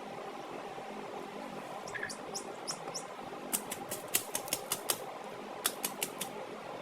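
Chickens stirring: a few short, high chirps, then a quick run of about ten sharp rustling clicks, over a steady background hum.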